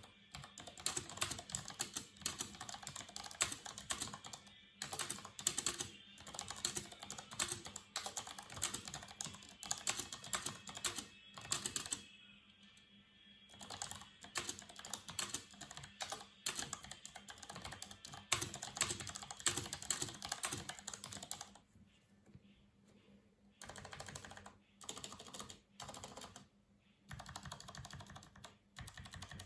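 Typing on a Tecware Phantom L mechanical keyboard with Outemu brown tactile switches: fast, continuous keystrokes with a short pause about twelve seconds in, then slower bursts of typing separated by gaps in the last third. The board's stabilisers are, in the uploader's words, horrible.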